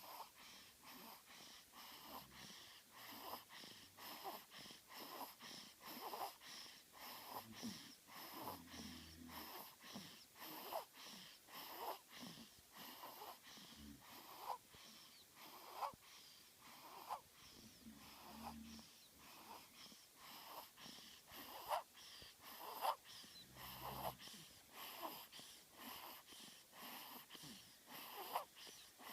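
A two-week-old baby snoring faintly in his sleep: quick, even breaths, about three every two seconds.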